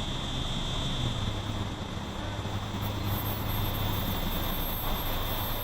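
Amtrak passenger train approaching with a steady low rumble, over a steady high insect buzz.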